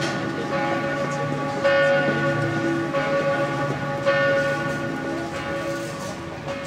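Church bells ringing, a fresh loud stroke about every two and a half seconds over the long hum of the bells, fading toward the end.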